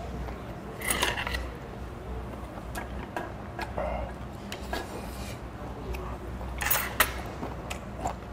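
Metal spoon clinking and scraping in an earthenware pot of soup while eating, with scattered sharp clicks and two louder noisy bursts, about a second in and near the end.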